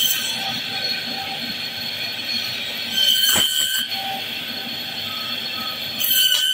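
Electric band saw running with a steady high-pitched whine as its blade cuts through a large boal (wallago catfish). It gets louder and rougher about three seconds in and again near the end as the blade bites into the fish.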